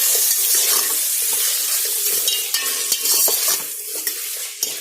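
Chicken pieces frying in hot oil in a rice cooker pot, sizzling as a spoon stirs them, with a few clicks of the spoon against the pot. The sizzle eases off near the end.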